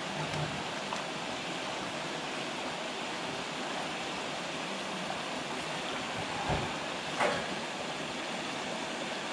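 Steady splashing hiss of a pond's fountain aerator spraying water, with a soft thump about six and a half seconds in and a brief tick just after.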